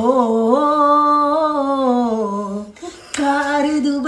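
A person's voice holding a long note that rises a little and then slowly sinks, lasting about two and a half seconds, followed after a short break by a second held note near the end.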